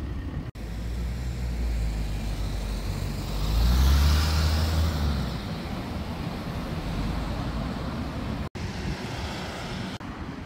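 City street traffic: a motor vehicle passes close, its engine and tyre noise swelling to loudest about four seconds in and then fading back into the steady rumble of traffic. The sound cuts out for an instant twice.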